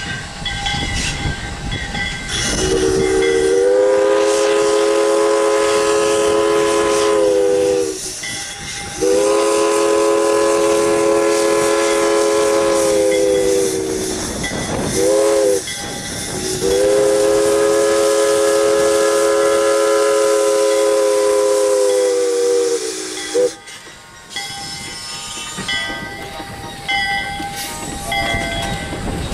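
Steam locomotive #85 blowing its whistle, a chord of several tones, in two long blasts, a short one and a final long one: the standard signal for a grade crossing. Near the end the passenger coaches roll past.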